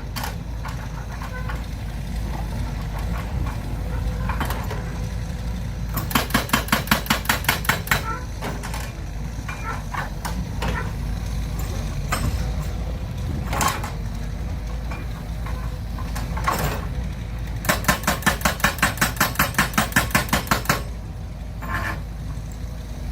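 Engine idling steadily, broken by two bursts of rapid regular knocking, each lasting two to three seconds.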